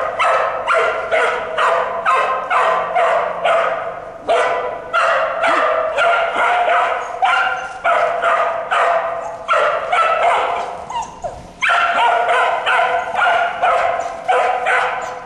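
A dog barking over and over in a steady rhythm, about three barks a second, with short breaks about four seconds in and near eleven and a half seconds.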